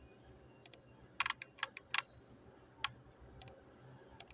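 Faint, irregular sharp clicks of a computer mouse, some in quick pairs, as menu items are clicked and scrolled, over a low hum.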